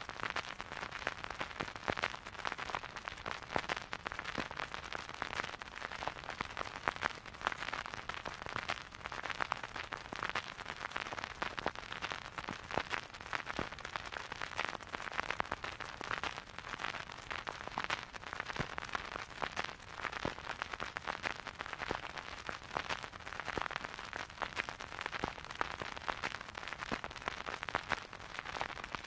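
Vinyl record surface noise from a stylus riding the groove: dense crackle and frequent pops over a soft hiss, with no music playing.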